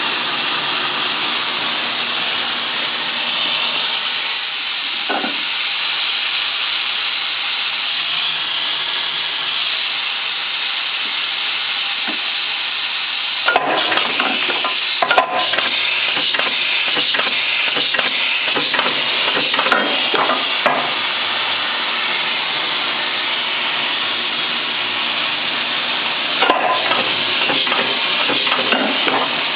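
TriState pneumatic upcut saw with an 18-inch blade, running with a steady hiss and low hum. A run of sharp knocks and clatter starts about halfway through and lasts several seconds, and a shorter run comes near the end.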